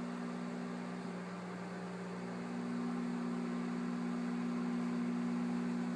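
Microwave oven running with a steady hum while cooking a bowl of ramen soup.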